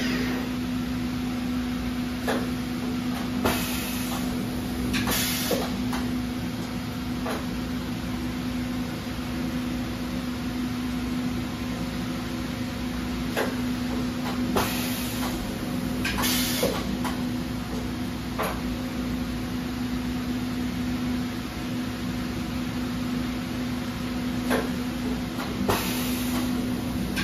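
Sharp SV-4328SX CNC vertical machining center running with its table traversing: a steady hum, scattered light clicks, and several short bursts of hiss.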